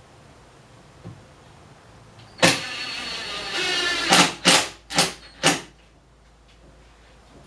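Cordless drill driving a screw into wood: one steady run of the motor for just under two seconds, then four short trigger bursts as the screw is snugged down.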